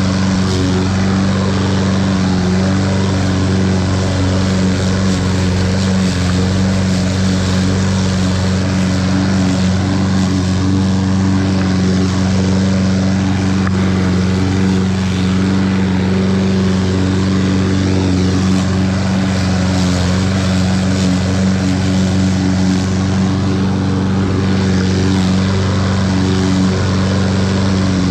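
Toro 21-inch walk-behind lawn mower engine running steadily at one pitch while mowing grass.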